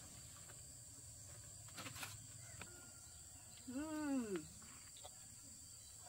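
Steady high-pitched insect drone, with one short wordless vocal cry about four seconds in that rises and then falls in pitch.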